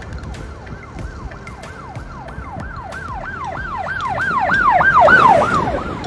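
Emergency vehicle siren in a fast rising-and-falling yelp, about three cycles a second, growing louder to a peak near the end and then fading as it passes.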